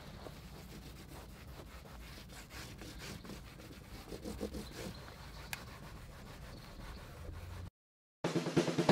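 A hand rubbing a cleaning wipe back and forth over the plastic rear sill trim in a Tesla Model S trunk, a soft scrubbing with faint ticks. Near the end it cuts out for a moment and loud music with drums comes in.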